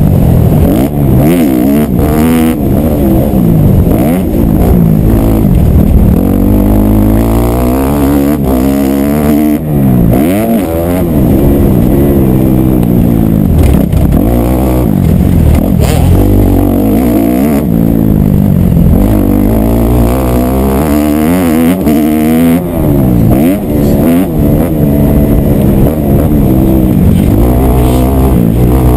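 Motocross dirt bike engine revving hard while ridden around a dirt track, its pitch climbing and dropping again and again as the rider accelerates, shifts and backs off for corners.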